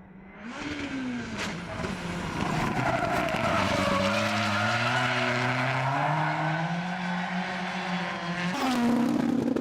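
A rallycross race car's engine pulling hard, its note climbing steadily as it accelerates, over a hiss of tyre noise. The note changes abruptly near the end.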